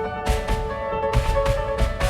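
Background music: sustained melodic notes over a steady, quick drum beat.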